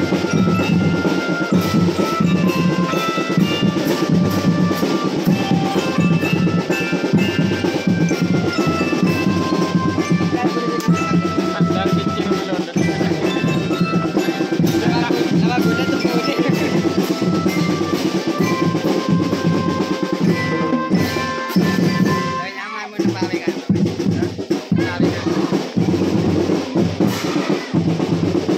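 Marching drum band playing: a glockenspiel carries a stepping melody over a steady beat of snare and bass drums, with a brief drop in the drumming a little over three-quarters of the way through.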